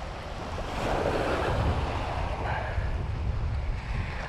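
Small surf waves washing up over a pebbly shore, one wave rushing in and fizzing out about a second in, with wind buffeting the microphone.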